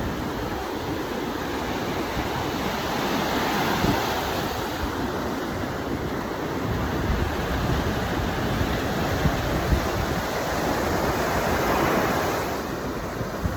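Ocean surf breaking on the shore, a steady wash that swells louder twice, about four seconds in and near the end, on a rough-water day. Wind gusts buffet the microphone with a low rumble and a few small pops.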